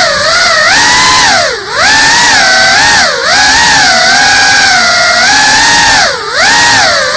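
FPV drone's brushless motors and propellers whining close to the onboard camera. The pitch rises and falls with the throttle and drops sharply three times, about a second and a half in, at about three seconds and near six seconds, where the throttle is eased off and picked up again.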